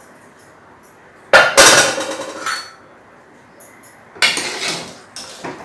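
Metal clatter from an opened aluminium pressure cooker: two loud bursts of clanking and ringing, about a second in and again about four seconds in, as the lid is put aside and a steel ladle knocks and scrapes inside the pot, followed by a few lighter clinks.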